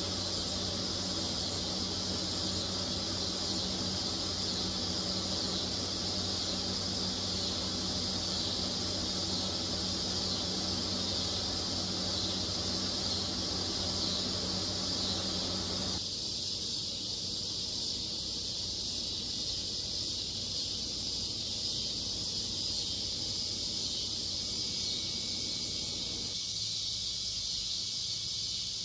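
Evening chorus of insects: a dense, steady, high-pitched buzzing. A low steady hum lies underneath and drops away about halfway through.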